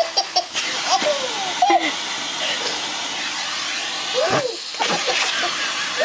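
Baby laughing and squealing in short bursts over the steady hiss of a running vacuum cleaner drawing air through its hose wand; the hiss dips briefly about four and a half seconds in.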